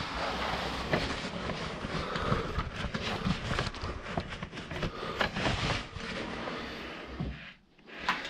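Close-up scraping, rubbing and knocking of a caver's clothing and gear against rock while squeezing through a tight cave passage, with many sharp knocks in the rustle. The noise drops away shortly before the end.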